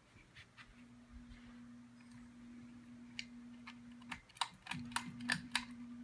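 Ceiling fan motor running with a steady low hum, its bearings greased and mostly silent. A series of sharp clicks comes in the second half, and the hum cuts out briefly about four seconds in before coming back.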